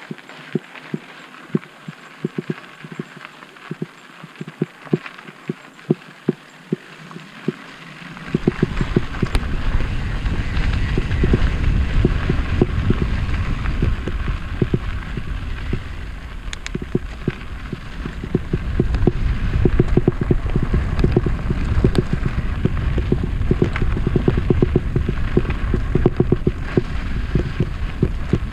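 Mountain bike rolling down a dirt singletrack: irregular knocks and rattles from the bike over bumps. About eight seconds in, a loud low rumble of wind on the microphone joins them and stays.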